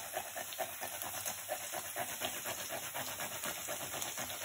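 Fresh red chili pepper rubbed back and forth on a small handheld grater, a quick run of rasping strokes at about five a second, over the steady sizzle of the frying pan below.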